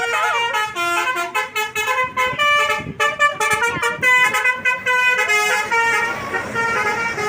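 Bus 'telolet' multi-tone musical air horn playing a quick tune of short steady notes that change pitch several times a second. A rushing noise builds near the end.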